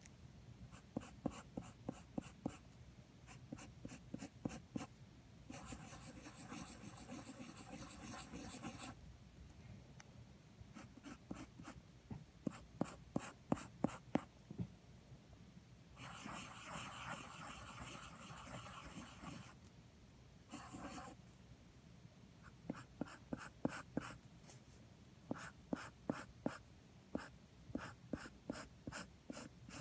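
Wooden graphite pencil scratching on paper while sketching: runs of quick, short strokes, and twice a longer, steady scratch lasting a few seconds.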